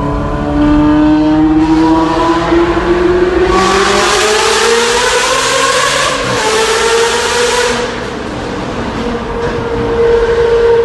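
Ferrari engine roaring at high revs, its pitch climbing steadily for about six seconds and then holding level, easing off briefly before picking up again near the end.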